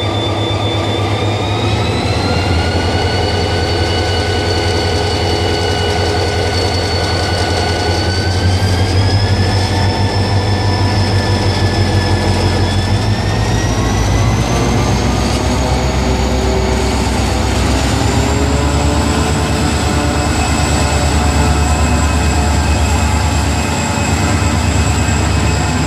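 Diesel-electric locomotive pulling a Mugunghwa-ho passenger train away from a station: a deep, steady engine rumble under a whine that climbs in several steps as the power is raised.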